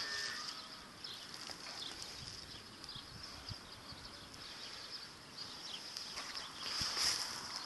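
Faint outdoor ambience: a high, thin, steady hiss or buzz that swells about seven seconds in, with light scattered ticks.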